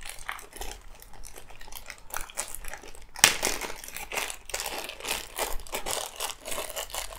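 Small clear plastic packing bag crinkling and crackling as hands handle and open it, with a sharper crackle about three seconds in.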